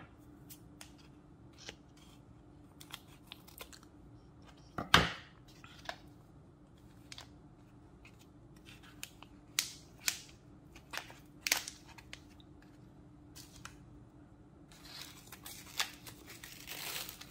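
Scattered clicks and taps of chemistry-kit items being handled on a table, with one louder knock about five seconds in and a rustling, tearing sound near the end, over a faint steady hum.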